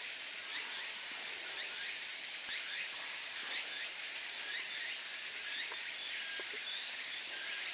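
A steady high-pitched insect drone, with short rising chirps repeating about twice a second over it.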